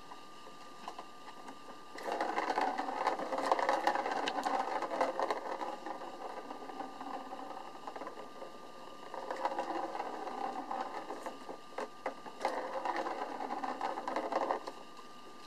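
A ball rolling and rattling around the plastic ring track of a cat toy as a kitten bats it, in three bouts: a long one about two seconds in, a shorter one around the middle, and another near the end.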